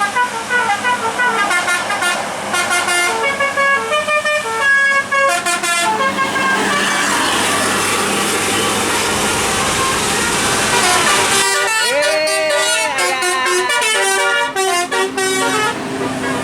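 Bus 'telolet' musical air horns playing quick melodic runs of short stepped notes, broken in the middle by several seconds of loud rushing noise, before more horn tunes come in near the end.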